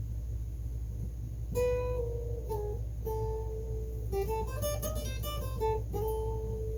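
Guitar playing a picked single-note melody that begins about a second and a half in, with a quicker run of notes near the middle, over a steady low hum.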